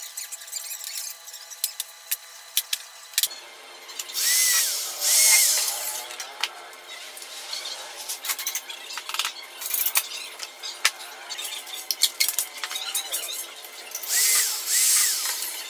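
Handheld electric drill run in two short bursts, about four seconds in and again near the end, its motor whine rising and falling as it spins up and stops, working into a drawer-box panel. Clicks and knocks of handling the box and tools fall in between.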